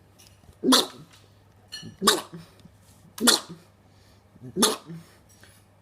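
A dog giving four short barks, evenly spaced about one and a half seconds apart.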